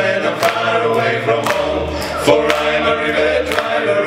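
Male vocal quartet singing a cappella in close harmony, holding drawn-out chords at the end of the song's last chorus line, with a sharp percussive beat about twice a second.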